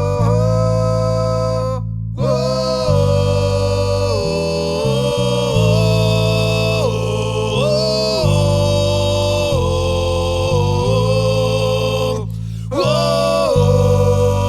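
Music: the opening of a rock song. A sustained lead melody slides from note to note over long held bass notes, breaking off briefly twice.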